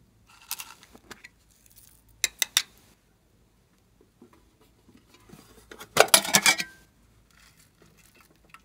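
Hard toy containers being handled, clicking sharply: three quick clicks about two seconds in. Near the middle comes a louder clatter of small hard pieces tipped into a glass dish.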